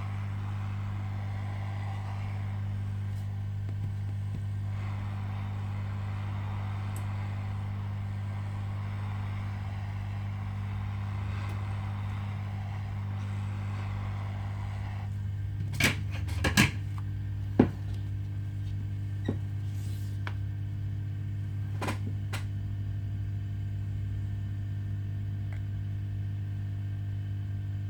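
Steady electrical hum, with a fan-like hiss over it that stops about halfway through. A few sharp clicks and taps follow, typical of small tools working on a phone.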